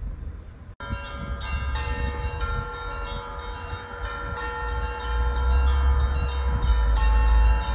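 Orthodox church bells pealing, several bells struck over and over so that their long ringing tones overlap, with a low rumble underneath. The bells start suddenly a little under a second in, after a brief cut from street noise.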